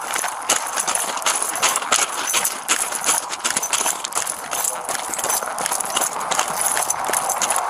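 Brisk footsteps crunching on gravel, heard close up on a body-worn camera, with irregular sharp crunches at walking pace.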